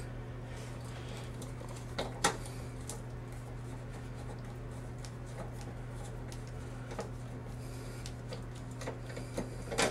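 Nut driver unscrewing a small motor-mount bolt on a refrigerator's condenser fan bracket: a few scattered light metallic clicks and scrapes over a steady low hum.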